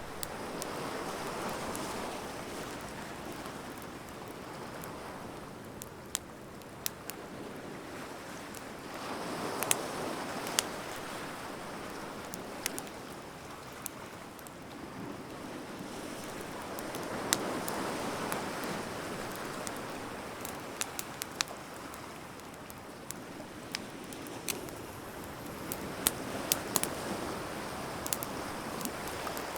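Wood fire crackling with scattered sharp pops, over surf washing in slow swells about every eight seconds.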